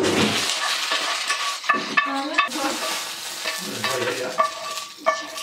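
Spinach sizzling in oil in a hot frying pan, loudest at the start, while a wooden spatula stirs it and scrapes it out of the pan with short scraping and squeaking strokes.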